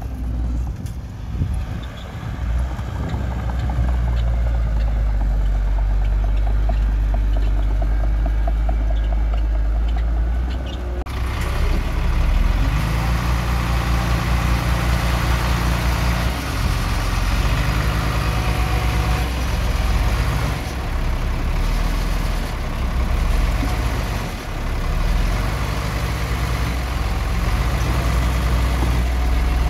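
Heavy diesel engine of earthmoving machinery running steadily. About eleven seconds in, a louder rushing, grinding noise joins it, and the engine grows stronger.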